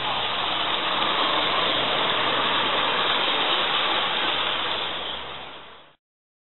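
Gauge 1 live-steam locomotive passing close by, its steam exhaust making a steady hiss that fades as it goes away, then cuts off suddenly near the end.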